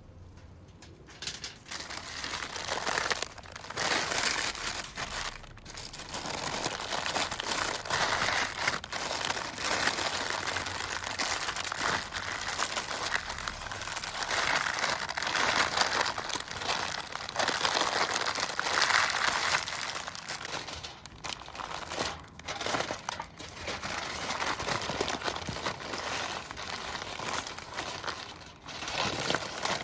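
Parchment paper and aluminium foil crinkling as they are folded and crumpled by hand, in uneven bursts with brief pauses.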